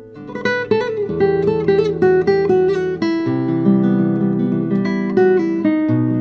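Background music: acoustic guitar playing a run of plucked notes and strums.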